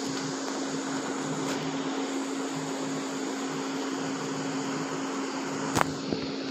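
Steady hum and hiss of a running motor-driven appliance, with a low steady tone. One sharp knock comes near the end.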